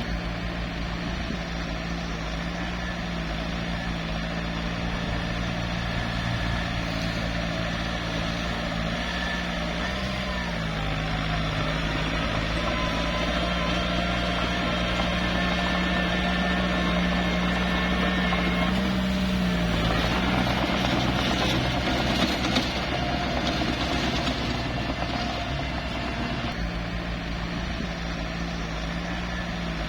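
Small bulldozer's diesel engine running under working load. Its pitch dips briefly about ten seconds in and shifts again near twenty seconds, followed by a rougher, noisier stretch for several seconds.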